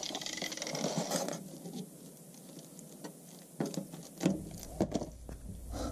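Irregular clicks, scrapes and a few sharper knocks of a hand tool picking at the rusted-through sheet metal of a Volkswagen T3's wheel arch and sill.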